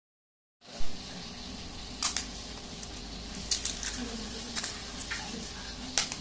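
Silent for about half a second, then hands handling and tapping eggs to crack them: a series of sharp clicks and taps of eggshell over a steady low room hum.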